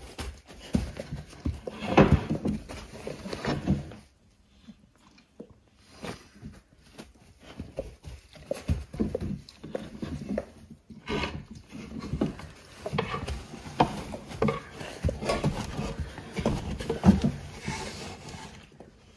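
A dog in labour moving restlessly in a whelping box: irregular rustling and rubbing of fur and bedding with occasional knocks, loudest about two seconds in, a short lull after about four seconds, then uneven rustling again.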